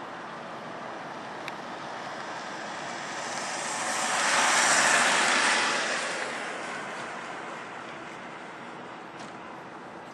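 A vehicle passing by: a rushing noise that swells to a peak about halfway through and then fades away.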